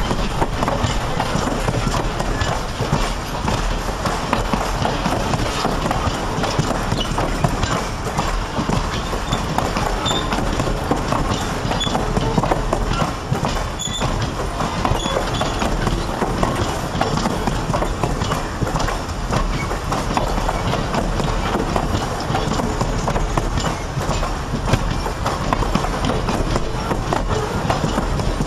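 Circus train passenger cars rolling past close by, their steel wheels rumbling and clacking steadily over the rails.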